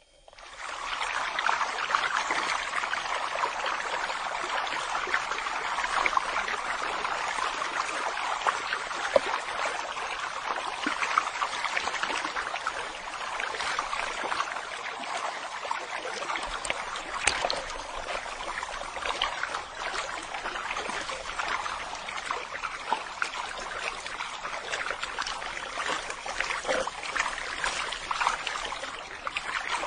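Steady splashing, trickling water with many small sharp ticks, fading in over the first second.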